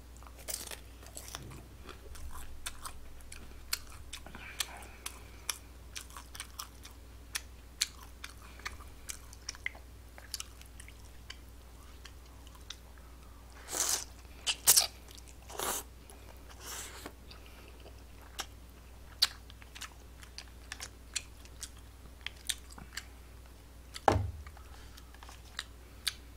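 A person eating tangsuyuk and jjamppong: chewing with many small mouth clicks, a few loud noodle slurps about halfway through, and a thump near the end.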